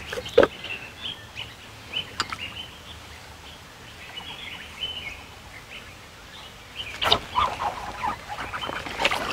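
Small birds chirping and calling repeatedly in the background, with a few sharp clicks or knocks, the loudest about half a second in, and a busier stretch of chirps and rustling near the end.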